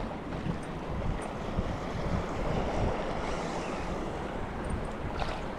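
Wind buffeting the microphone over the steady wash of small waves in shallow surf.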